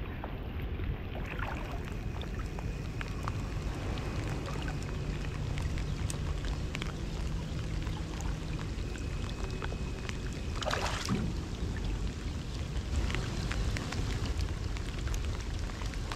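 Rain falling, many scattered small drop ticks over a steady low rumble of water. A brief rushing sound stands out about eleven seconds in.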